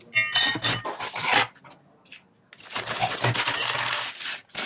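Kitchen handling sounds: a brief ringing metallic clink at the start, then two stretches of noisy rustling and scraping, each lasting one to two seconds.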